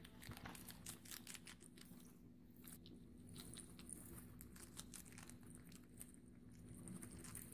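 Guinea pigs biting and chewing raw cucumber, pepper and carrot pieces: faint, irregular crisp crunches.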